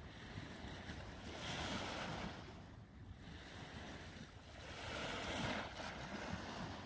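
Small waves washing up onto a sandy beach and draining back, each wash swelling and fading about every three seconds.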